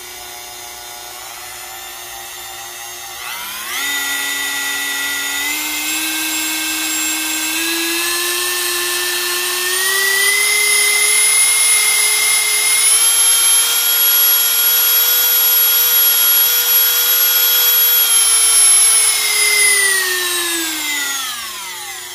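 Dremel 4000 rotary tool running with a nylon bristle brush fitted, its motor whine stepping up in pitch several times as it is taken through its speed settings. Near the end it winds down with a falling whine.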